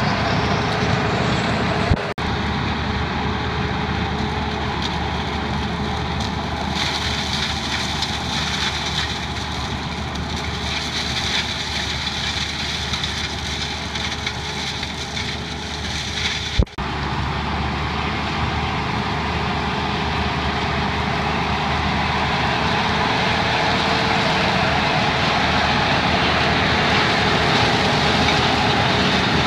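Porter Orchard Boss 125D tractor's engine running steadily while it pulls a Rears Power Shredder working through a vineyard row: a continuous mechanical din with a faint steady hum. Two brief clicks cut through it.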